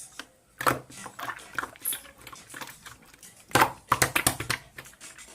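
Slime being squished and pressed by hand, giving an irregular run of wet clicks and crackling pops, loudest in a quick flurry about halfway through.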